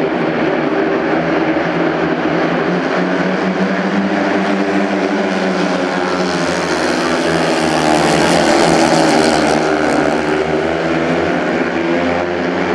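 Four speedway bikes' 500cc single-cylinder methanol engines racing around the track, a loud, continuous drone whose pitch bends up and down as the riders power through the turns. It grows louder about eight seconds in, as the riders slide past close by.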